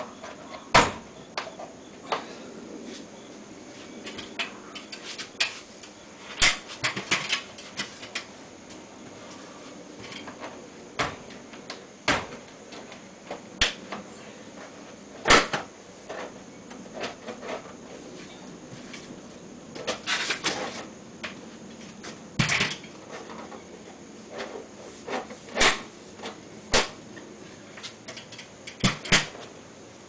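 Irregular sharp clicks and knocks of hand work with tools and fittings on an air conditioner installation, with steps on an aluminium stepladder, about a dozen louder knocks spread through.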